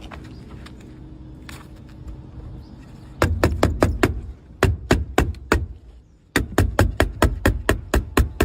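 Background music with a fast percussive beat of sharp, evenly spaced hits that comes in about three seconds in, drops out briefly near the end and starts again, over a low steady background.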